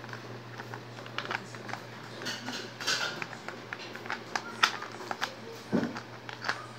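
Small plastic toys being handled by hand on a bedsheet: scattered light clicks, taps and rustles as a toy car and animal figures are moved about, with a firmer knock near the end. A faint steady hum runs underneath.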